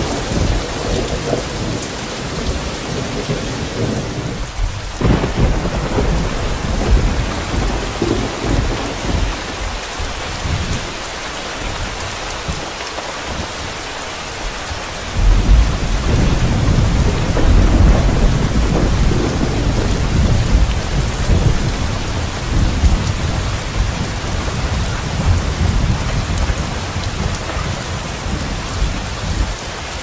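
Continuous rushing noise over a deep rumble, like a rainstorm with thunder. The rumble thins briefly about five seconds in and stays lighter until about fifteen seconds in, when it comes back louder and deeper.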